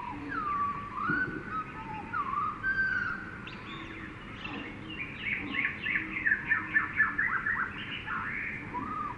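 Jungle ambience: several birds calling and chirping at once, with whistled gliding notes, over a steady background hiss. About halfway through, a fast run of sharp descending notes is the loudest part.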